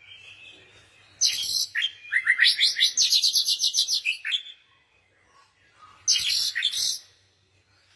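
Small songbirds chirping: a burst of high chirps, then a fast trill of repeated notes that rises in pitch, then another burst of high chirps.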